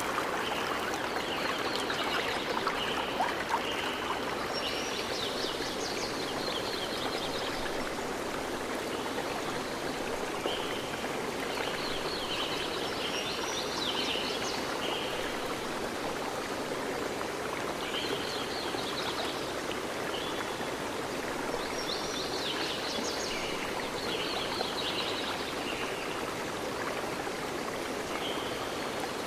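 Steady sound of a flowing stream, with bird calls coming and going every few seconds.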